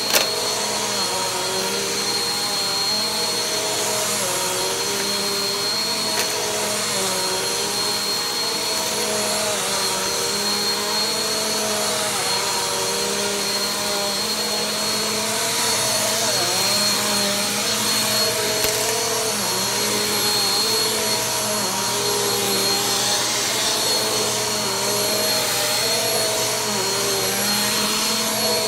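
Vacuum cleaner running on carpet: a steady motor whine, with a lower hum that wavers in pitch every second or two as it is pushed back and forth.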